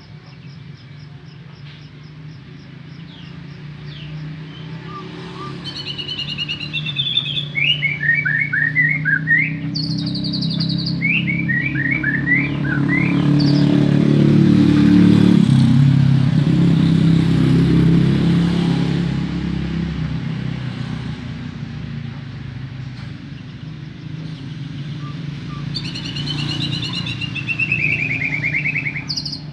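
White-rumped shama singing: phrases of quick, falling slurred whistles, around six and eleven seconds in and again near the end. Under the song a low rumble swells to the loudest point midway and fades, like a passing vehicle.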